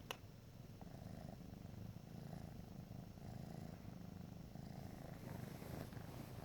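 A cat purring steadily and softly, with one sharp click just after the start.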